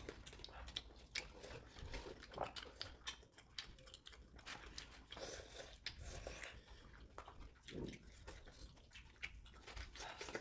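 People chewing and eating tteokbokki with chopsticks from paper cups: quiet mouth sounds with many small scattered clicks and smacks.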